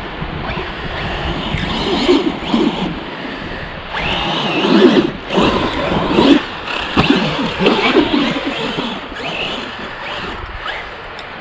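Team Corally Asuga 6S radio-controlled buggy's brushless motor whining as it is revved up and down repeatedly, with several short rising whines, loudest in the middle.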